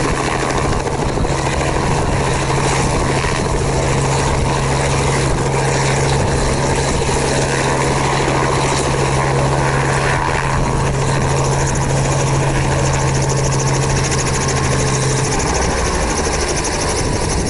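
Small Robinson helicopter running close by as it hovers low and settles onto a cleared landing spot, a loud steady rotor and engine noise. A steady low hum within it stops shortly before the end.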